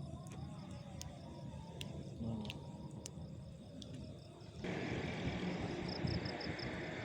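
Wind rumbling on the microphone, with faint insect chirping; the wind noise jumps up abruptly about two-thirds of the way through.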